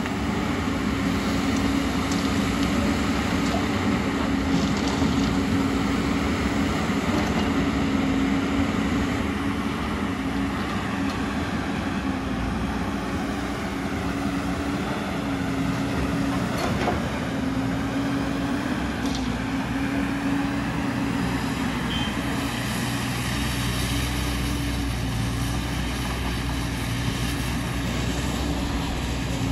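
Diesel engine of a JCB tracked excavator running steadily as it digs and loads, with the clatter and hiss of the working machine. About two-thirds through, a deeper engine drone comes in as the dump truck drives off.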